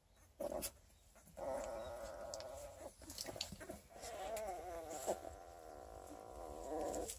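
Young coonhound puppy, its eyes not yet open, whining: a short cry, then a long wavering whine that breaks off briefly about three seconds in and carries on until near the end.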